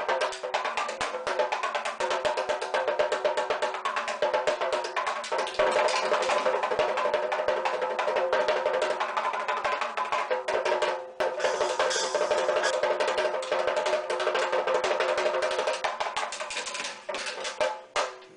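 Mini desktop drum set played fast with drumsticks: rapid rolls and fills of many strokes a second, the small drums ringing at a steady pitch. The playing stops briefly about eleven seconds in, then resumes and breaks up near the end.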